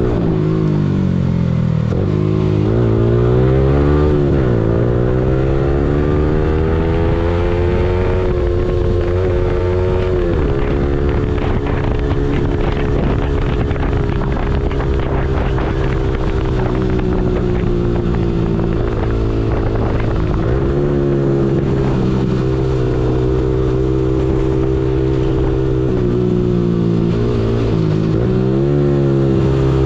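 Yamaha R15M's single-cylinder engine heard from the rider's seat while riding: it climbs in pitch and drops back several times in the first ten seconds as it pulls up through the gears, then holds a fairly steady cruise with wind rush. Near the end the pitch falls and rises again as the bike slows.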